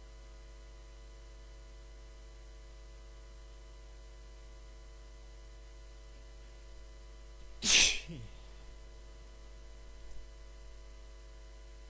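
A man sneezes once, a loud, sharp sneeze nearly eight seconds in, deliberately induced, over a steady electrical hum.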